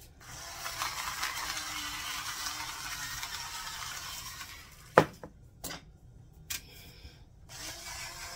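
Battery-powered electric salt and pepper grinder, the kind with a blue light that switches on when tipped, running as it grinds seasoning over meat: a steady whirr for several seconds, a sharp knock about five seconds in and a few lighter clicks, then the whirr again near the end.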